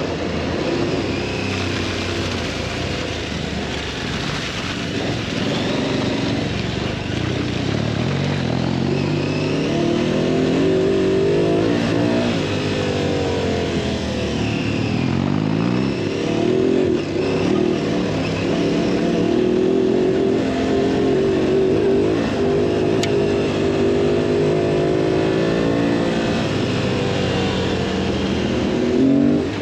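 Twin-cylinder adventure motorcycle engine under way off-road, its revs rising and falling again and again with the throttle and gear changes.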